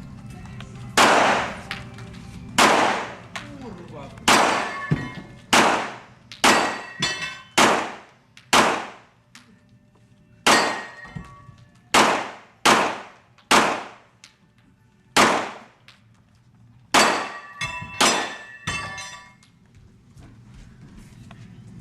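A competitor's handgun fired about twenty times, at an uneven pace with singles and quick pairs, each shot sharp and loud with a ringing, echoing tail. There is a long pause about two-thirds of the way through, then a closing string of shots.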